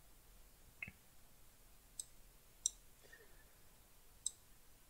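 Computer mouse clicking, three short sharp clicks spread over a few seconds, with a softer, lower knock just under a second in.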